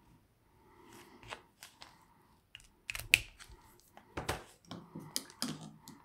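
Small handling noises on a tabletop: a run of sharp clicks, taps and rustles, the sharpest about three seconds in, as a Posca acrylic paint pen is put down and cotton swabs are picked up.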